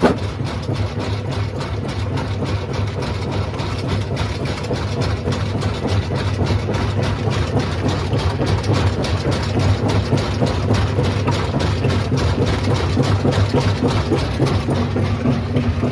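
Stone crushing machine running: a steady low mechanical drone with many rapid knocks and clatters of rock being broken throughout.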